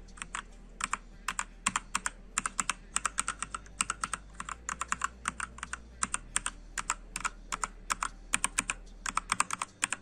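Typing on a Rampage RMK-GX7 Strike mechanical keyboard fitted with Jixian red (linear) switches: a quick, uneven run of keystrokes, several a second.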